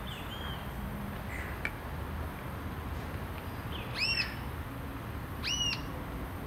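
Rufous-tailed jacamar calling: two sharp, high notes about a second and a half apart, each quickly rising and falling in pitch, after a few faint short chirps near the start.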